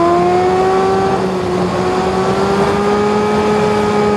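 Car engine heard from inside the cabin, pulling steadily as the car drives along a mountain road, its pitch climbing slowly as it gathers speed.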